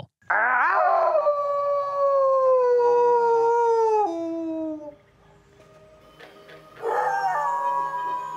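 Recorded human imitation of a wolf howl played through an electronic game caller: one long howl that slides down in pitch and steps lower near its end, lasting about four and a half seconds. About two seconds after it stops, a red wolf howls in answer.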